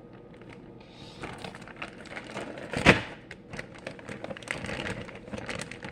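Homemade slime being squished and stretched by hand, making a run of small wet clicks and crackles, with one louder pop about three seconds in.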